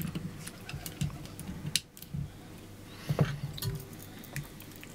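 Light clicks and knocks of a circuit board being handled and set into a plastic PCB holder. There is a sharper click a little under two seconds in and a short cluster of knocks about three seconds in.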